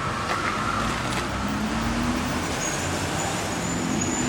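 A car engine running, its low note rising slightly and then holding steady, over street noise. A faint high whine comes in about halfway through.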